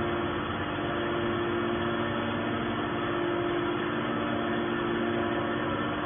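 Hydraulic scrap metal baler's electric motor and pump running steadily at idle, a constant hum with a steady pitch.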